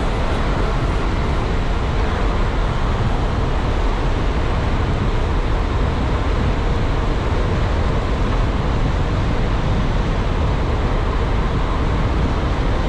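Wind rushing over the microphone of a bicycle speeding downhill, with tyre noise on asphalt: a steady, loud, deep rush that does not change.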